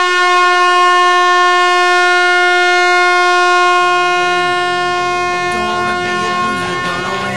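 Ice hockey arena goal horn blowing one long, steady, loud note, the celebration of a goal. About halfway through, rock music of the goal song starts up beneath it as the horn begins to fade.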